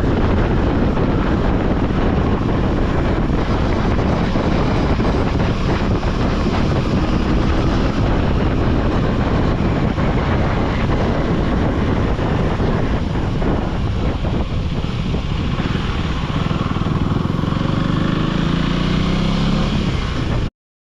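KTM 390 Duke Gen 3's single-cylinder engine running while riding; in the last few seconds its pitch climbs as it revs up under acceleration. The sound cuts off suddenly just before the end.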